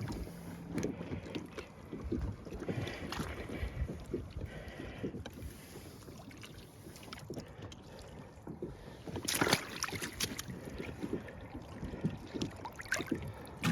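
Irregular knocks and clatter of gear and paddle against a kayak on the water, with a louder burst of clatter about nine seconds in.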